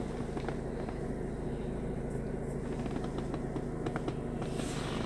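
Mazda RX-8's twin-rotor Renesis rotary engine idling steadily, heard from inside the cabin as a low, even hum.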